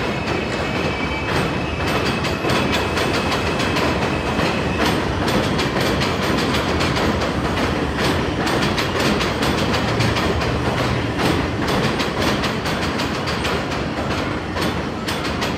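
Elevated subway train passing overhead on the steel el structure, a loud steady rumble with rapid clattering of wheels over the rail joints. A thin high wheel squeal runs through the first few seconds and then stops.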